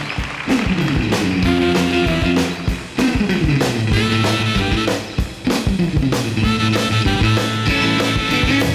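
Walk-on band music: drum kit beating out a steady rhythm under guitar and held notes.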